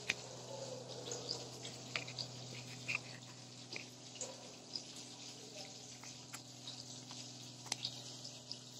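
Onions and whole spices frying in oil in an aluminium pressure cooker, a steady sizzle with scattered crackles. A few sharper clicks come from the spoon stirring and scraping the pot, over a low steady hum.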